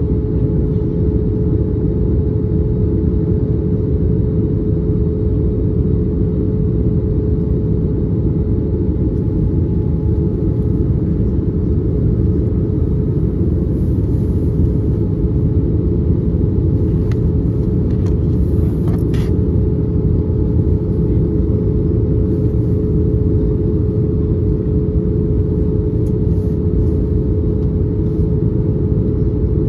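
Airbus A321 cabin noise from a window seat over the wing during descent: an even roar of airflow and its two CFM56 engines, with a steady tone riding above the rumble.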